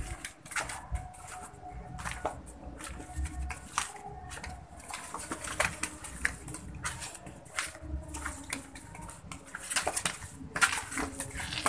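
Domestic geese being herded on a concrete yard: scattered footsteps and scuffs, with a few faint goose calls in the first few seconds.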